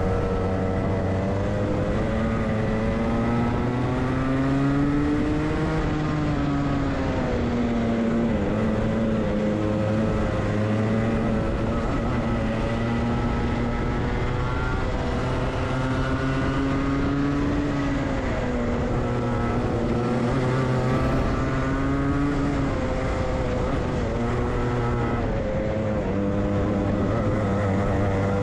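Onboard sound of a Club100 racing kart's Rotax Max 125cc two-stroke engine at race pace, its pitch climbing on the straights and dropping off into the corners, several times over.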